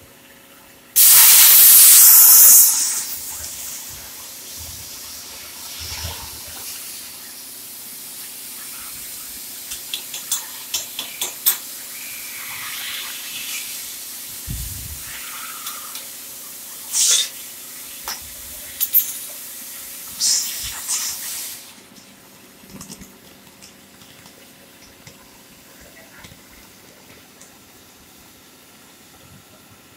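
CNC profile cutting machine's torch firing: a loud blast of hiss for about a second and a half, then a steadier hiss with scattered crackles while it cuts, stopping suddenly a little past two-thirds of the way through.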